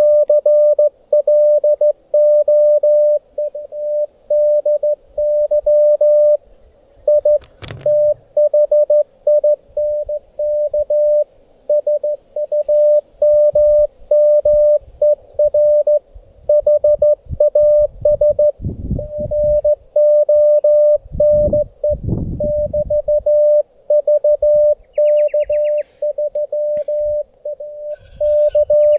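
Slow Morse code (CW) from a Xiegu G90 transceiver: a steady single-pitch tone keyed on and off in dots and dashes, the other station's signal being received on 40 metres. A knock comes about seven seconds in and low rumbling a few seconds later.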